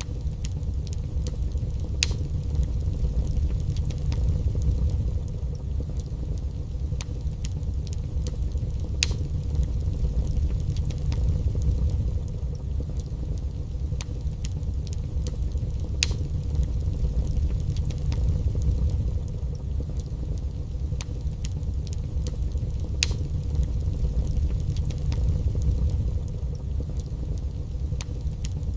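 Wood fire burning in a fireplace: a steady low rumble with scattered sharp crackles and pops, a few of them louder, about seven seconds apart.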